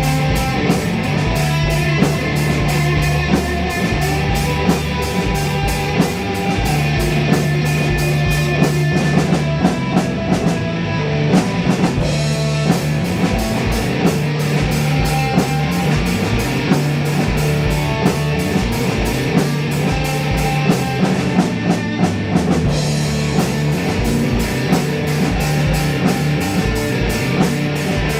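Instrumental psychedelic rock jam: guitar over a drum kit keeping a fast, steady cymbal beat, with a low note held underneath.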